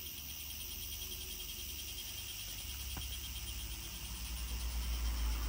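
Chorus of insects chirring steadily in a fast, even pulse, with a low rumble underneath that grows louder near the end.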